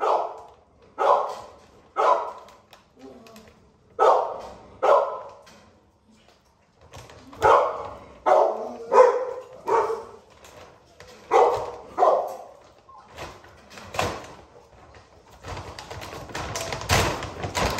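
A dog barking repeatedly in short, sharp barks, some in quick pairs, with pauses of a second or two between them. Near the end a steadier noise takes over.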